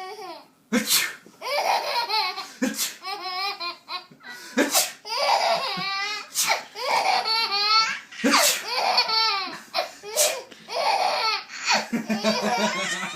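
A man's fake sneezes, about one every two seconds. Each is followed by a young child's high-pitched, hysterical belly laughter.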